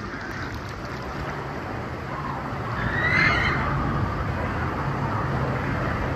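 Water rushing and sloshing in a wave river, heard through a waterproof camera case. About three seconds in there is a distant high, arching shriek, and a steady low hum comes in around halfway.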